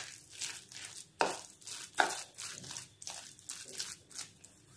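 A spoon stirring a thick rice-flour and curd batter with chopped coriander and mint leaves in a bowl: a run of short wet scraping strokes, about two or three a second.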